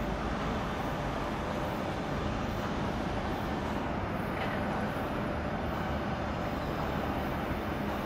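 Steady outdoor rumble and hiss of background industrial noise, even throughout with no distinct events.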